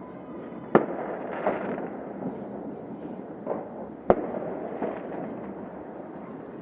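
Fireworks going off: about five sharp bangs, the loudest about four seconds in, over a continuous crackle of many smaller fireworks.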